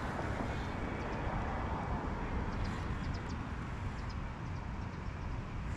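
Steady outdoor rumble with wind on the microphone, and a few faint ticks about halfway through.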